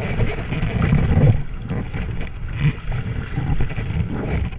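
Wind buffeting an action camera's microphone during windsurfing: a heavy, uneven low rumble, with water splashing around the board and sail.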